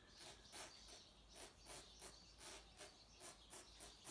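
Faint, quick scratchy strokes of a hand-held hair razor slicing through a section of hair, about three a second.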